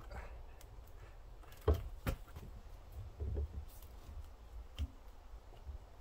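A few scattered light knocks and clicks of hard objects being handled, two sharper ones close together about two seconds in and duller thumps a little later, over a low steady rumble.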